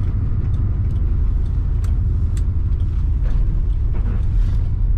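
Cabin sound of a 1980 Pontiac Trans Am's turbocharged 4.9-litre V8 driving at low speed: a steady low engine and road rumble, with a few faint ticks.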